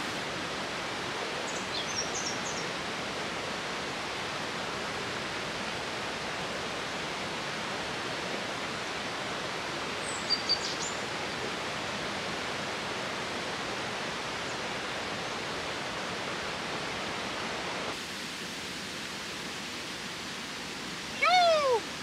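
Steady rushing water of a waterfall and the stream below it, with a couple of short high chirps, about two seconds and ten seconds in.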